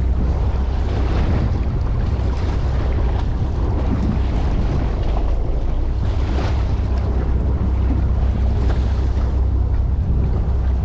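Wind gusting over the microphone on a boat at sea, over a steady low rumble.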